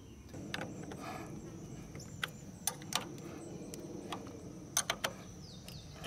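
A handful of sharp metallic clicks and taps from a wrench working a battery cable terminal nut on the bus's battery tray, over a faint steady background hiss, with a quick cluster of three clicks near the end.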